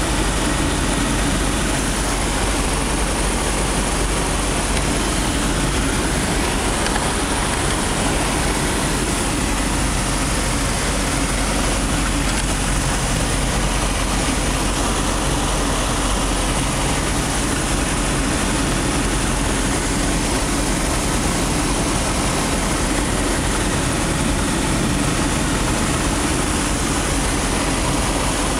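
Fournier RF-5 motor glider's Limbach flat-four engine and propeller running steadily, heard from inside the cockpit.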